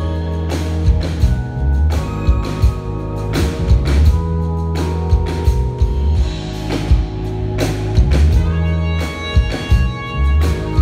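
A live jazz band playing, heard from the audience: drum kit hits over a deep, held electric bass line, with sustained keyboard chords.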